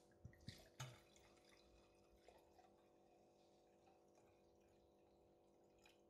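Red wine poured from a bottle into a wine glass, a faint liquid trickle, with a few light clicks in the first second.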